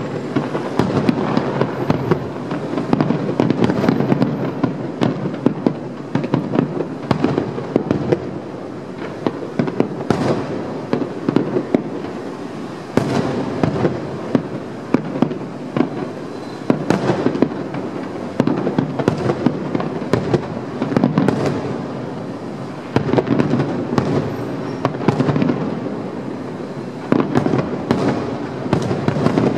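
Aerial fireworks display: a dense, continuous barrage of shell bursts, the bangs and pops following one another so quickly that they overlap over a steady rumble.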